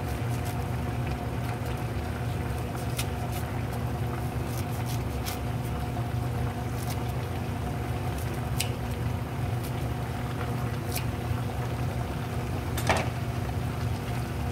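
A pan of saucy chicken, cabbage and potato simmering and bubbling over a steady low hum. Scattered sharp clicks come from scissors snipping perilla leaves into the pan, the loudest near the end.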